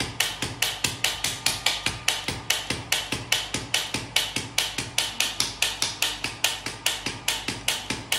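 Handheld radial shockwave therapy applicator firing against the upper back, a steady, even train of sharp clicks at about five a second.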